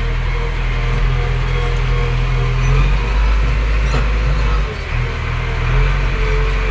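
JCB backhoe loader's diesel engine running, heard from inside the cab as a steady low rumble, dipping briefly about four and a half seconds in.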